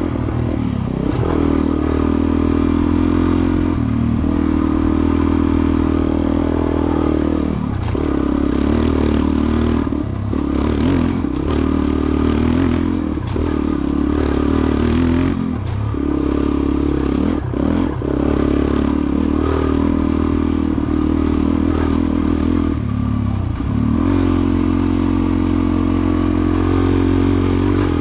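Suzuki DR-Z400's single-cylinder four-stroke engine running on a dirt trail ride, its note dipping briefly several times and picking back up, with rattling and clatter from the bike over rough ground.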